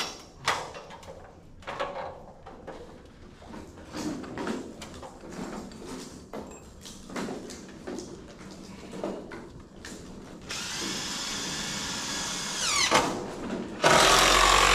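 Scattered knocks and taps as the lumber is positioned, then a DeWalt cordless impact driver runs, briefly at first about ten seconds in and then loudly near the end, driving a long structural screw through the 2x12 rim joist into the post.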